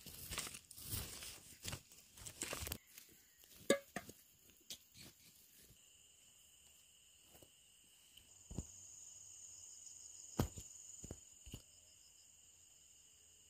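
Rustling and crackling handling noise for about the first three seconds. After that, insects set up a steady high-pitched chirring chorus, like crickets, with a few sharp knocks over it.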